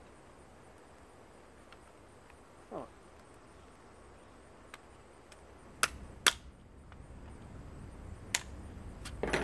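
Sharp metal clicks and snaps from pliers working a small electric motor's metal casing, three of them in the second half, building to a louder clatter at the very end as the motor's casing comes apart.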